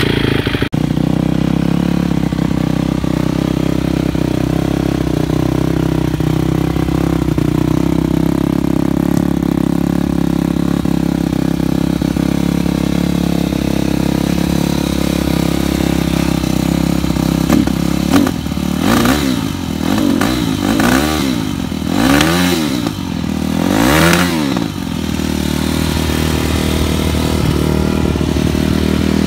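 2013 Yamaha YZ250F four-stroke single-cylinder engine idling a bit high, blipped up and down about five times past the middle, then settling back to idle. The owner reckons it needs a good tune-up, carburetion rather than valve adjustment.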